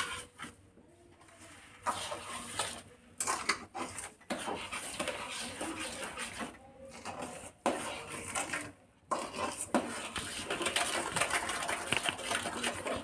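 Metal ladle stirring and scraping in a metal pot of carrot halwa, with irregular clinks and clatter of utensils, mostly from about two seconds in.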